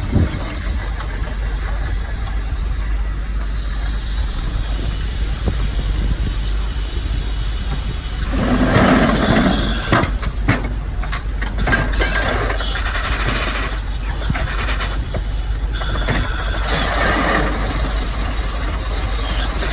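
Steam-powered excavator working: a steady low mechanical rumble, louder and harsher for a couple of seconds about halfway through and again a few seconds later.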